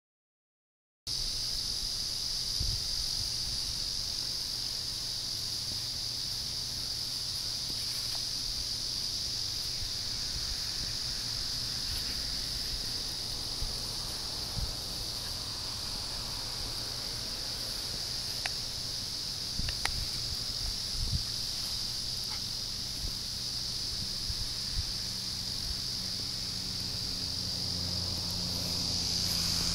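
Steady high-pitched drone of cicadas and other insects, starting about a second in. A car's low rumble comes up near the end.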